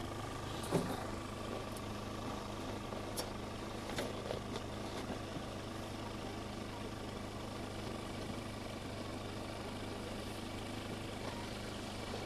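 An engine idling steadily, a constant hum with a few faint clicks.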